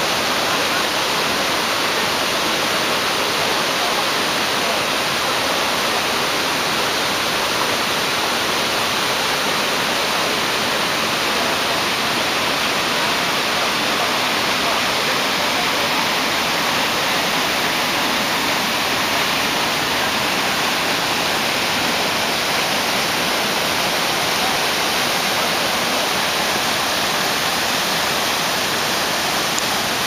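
Kivach waterfall: water pouring over the rock ledge and rushing through the gorge, a loud, steady, unbroken roar.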